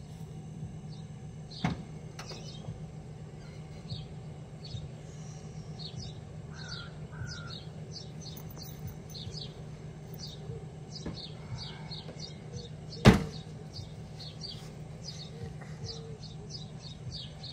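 Outdoor ambience of small birds chirping over a steady low hum, with a light knock near the start and one loud sharp bang about thirteen seconds in as the car's rear hatch is shut.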